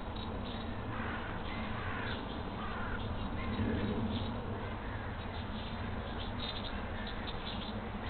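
Steady hiss and hum of a nest-box camera microphone, with a few short bird calls between about one and three seconds in.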